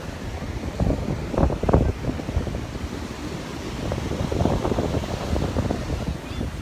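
Wind buffeting the microphone over the steady wash of rough, heavy surf, gusting harder about a second and a half in and again past the middle.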